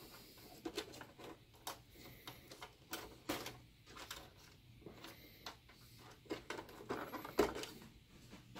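Small plastic clicks and scrapes as wire-harness connectors are worked loose from a projector's main circuit board, in irregular taps with a sharper click about seven seconds in.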